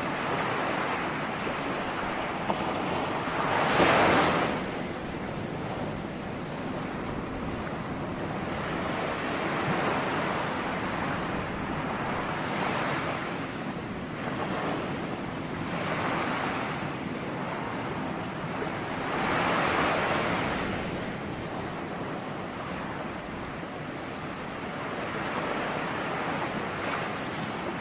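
Ocean waves breaking and washing on the shore, a continuous surf with louder breakers swelling up every few seconds, the biggest about four seconds in and again around twenty seconds.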